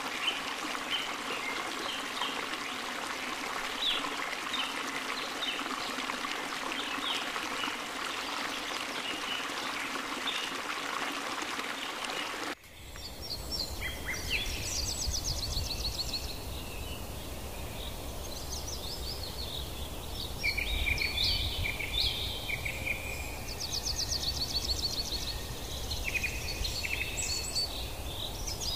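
Choppy lake water lapping and splashing, with a few faint bird calls. About twelve seconds in it changes abruptly to several songbirds singing, with rapid high trills and chirps over a low rumble.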